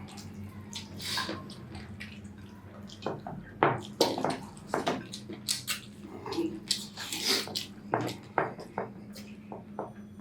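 Wet chewing and smacking mouth sounds of people eating chicken curry and rice, with irregular sharp clicks and slurps.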